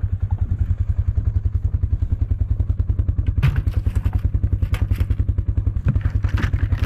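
A farm vehicle's engine running with a steady, even chugging beat, about ten pulses a second, with a few clanks and rattles from about three and a half seconds in.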